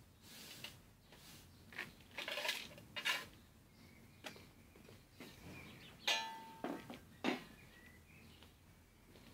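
Two dogs gnawing and mouthing a ball: irregular clicks and scrapes of teeth on the ball, with a short squeaky sound about six seconds in.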